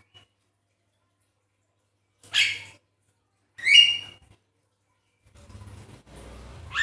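Javan myna giving two short, harsh calls about a second and a half apart, the second louder with a bending pitch. Quieter scratchy sounds follow near the end, and a sharp call comes right at the end.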